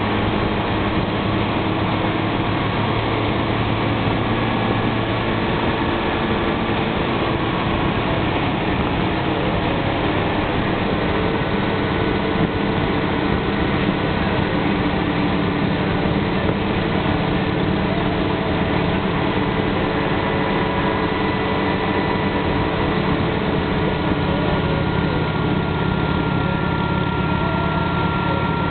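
Motorcycle engine running steadily at cruising speed, under a constant rush of wind and road noise.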